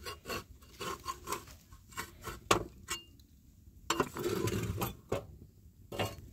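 Flat metal spatula scraping and tapping on a domed metal griddle as acorn flatbread cooks, a series of short strokes with one sharper click and a longer scrape about four seconds in.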